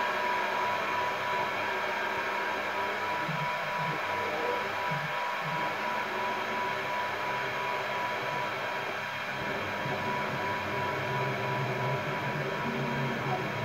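Small CNC mill running under its controller: the stepper-driven axes move in short low-pitched humming runs, over a steady rushing noise.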